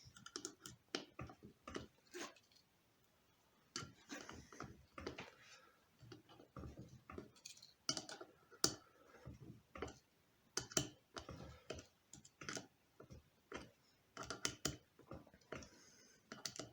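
Faint, irregular clicks and short scrapes of a pocket knife's non-locking screwdriver blade working a self-tapping screw, the blade held at an angle because it is wider than the screw's slot.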